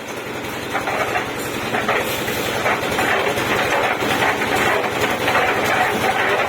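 Concrete mixer running steadily: an engine drone under a continuous uneven rattle.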